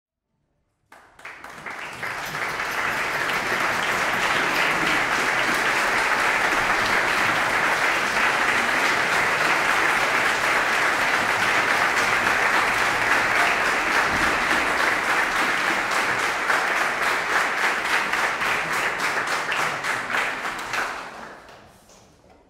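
Audience applauding: the clapping swells up within the first second or two, holds steady, and dies away near the end.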